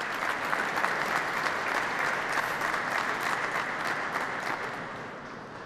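Applause from a ceremony audience, many hands clapping steadily, dying away near the end.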